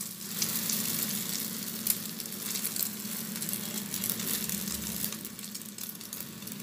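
Beaten egg sizzling and crackling in hot oil in a nonstick frying pan as a plastic slotted spatula folds and presses the thin omelette. A single sharp tap about two seconds in.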